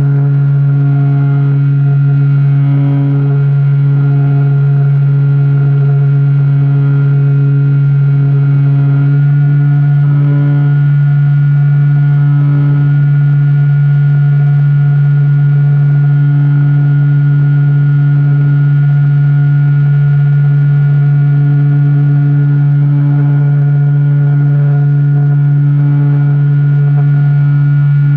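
Electric motor and propeller of a Skyhunter FPV model plane droning steadily at cruise, heard from the onboard camera, with a slight change in tone about nine seconds in.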